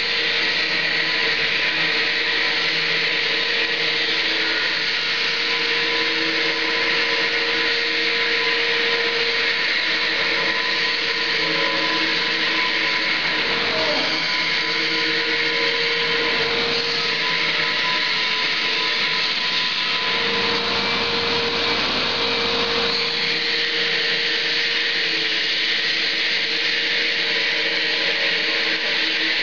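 Steady machinery noise: an even, loud hiss with a few steady hums running underneath, unchanging in level.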